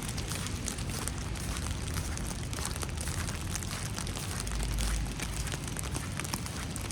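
Steady crackly patter of falling wet snow, many fine irregular ticks over a soft hiss, with a brief low rumble about four and a half seconds in.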